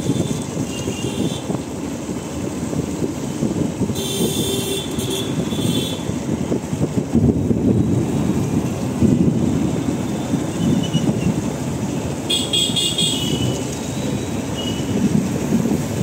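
Motorcycle riding slowly through street traffic: a steady engine and road rumble, with a vehicle horn honking for about two seconds around four seconds in and again for about a second near the end.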